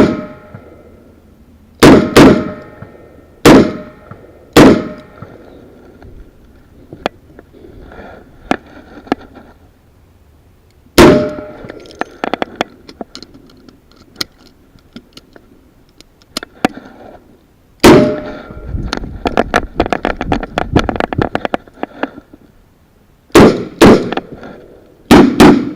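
A string of revolver shots fired in competition, close to the microphone: single shots and quick pairs, a gap of several seconds with light clicks during a reload, then more shots and a quick burst of smaller impacts.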